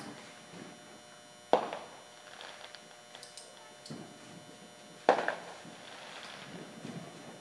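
Two sharp bangs of fireworks, about three and a half seconds apart, each followed by a short echoing tail.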